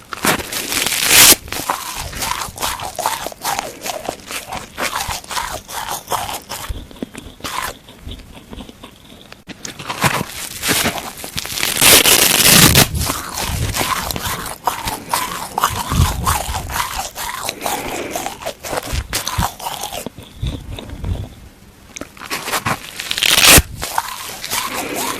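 Dry plastic sponge being bitten and chewed close to the microphone: dense crunching and crackling, with louder bursts of crunch about a second in, around the middle, and near the end.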